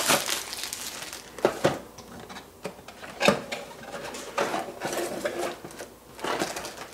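Clear plastic shrink wrap crinkling as it is peeled off a cardboard box, then the box being opened and a plastic tray in a plastic bag handled on a wooden table, with several sharp taps and knocks.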